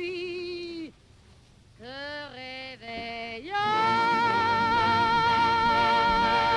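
Music: a lone, wordless melody line with wide vibrato, each note sliding up into pitch, in short phrases with a pause after the first second. About three and a half seconds in it settles on a long held note as other notes join beneath it.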